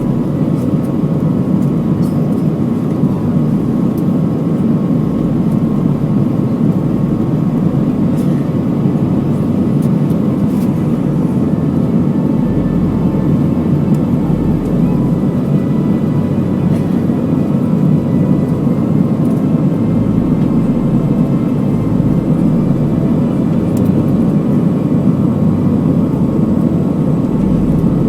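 Steady roar inside the cabin of an Airbus A320 in flight, from airflow and its IAE V2500 engines, with a faint steady whine over it.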